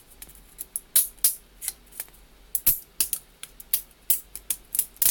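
3D-printed plastic support material being snapped and picked off a printed part by hand: a run of sharp, irregular clicks and cracks, several a second.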